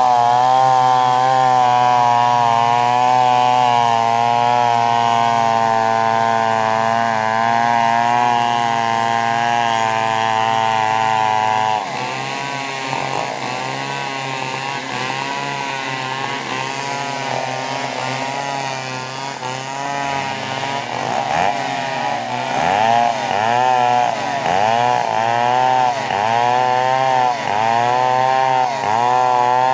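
Chainsaw running at a steady high pitch, dropping abruptly about twelve seconds in to a lower, uneven note. Over the last several seconds the engine pitch rises and falls about once a second.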